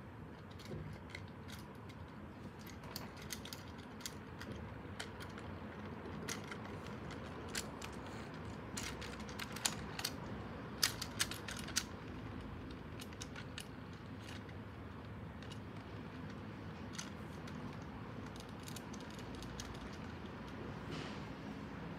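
Battery-powered Plarail toy train, an E5 series shinkansen model, running on plastic track. Its small motor and gearbox give a steady whir, with scattered sharp clicks and a run of louder clicks between about 9 and 12 seconds in.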